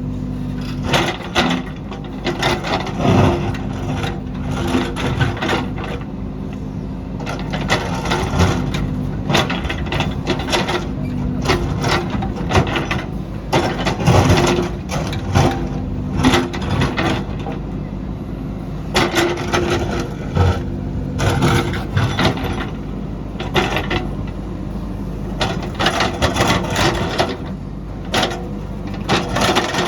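JCB backhoe loader's diesel engine running steadily under work, with irregular knocks and scrapes throughout as it digs into rocky ground.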